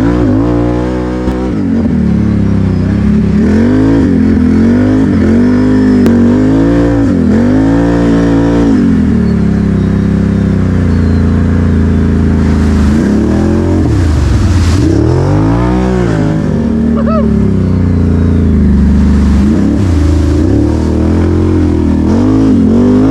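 ATV engine running under way on a trail, its pitch rising and falling over and over as the throttle is opened and let off.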